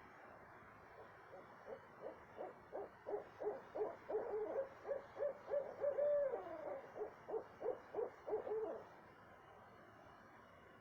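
Owl hooting: a run of short hoots, the gaps shrinking to two or three a second, with a longer wavering call in the middle, stopping about nine seconds in.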